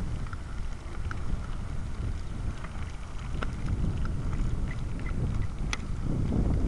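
Wind buffeting the microphone while riding a wooden bicycle over pavement: a steady low rumble with a few light ticks scattered through.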